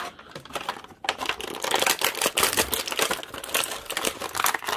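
Clear plastic action-figure packaging crinkling and crackling as it is handled, faint at first and then dense and continuous from about a second in.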